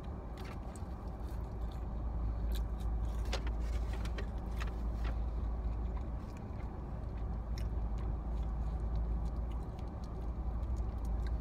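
Steady low hum of a car running, heard from inside the cabin, with scattered light clicks and rustles over it.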